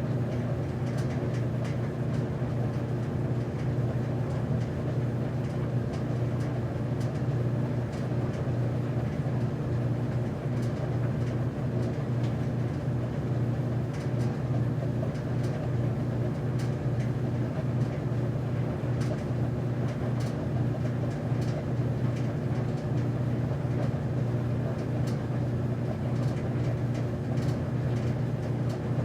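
Commercial laundromat machine running: a steady low motor hum as the drum turns, with faint light ticks scattered irregularly through it.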